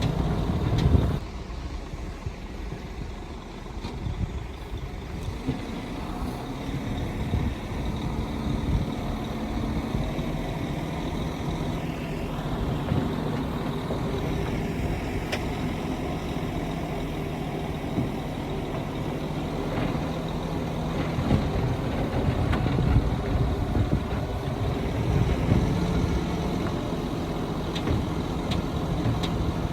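Heavy diesel earthmoving machinery running: a steady engine drone, louder for about the first second, with scattered faint knocks and a brief gliding whine near the middle.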